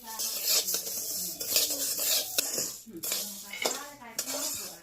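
A metal utensil scraping and clinking against a cooking pan as food is stirred, with several sharp clinks of metal on metal.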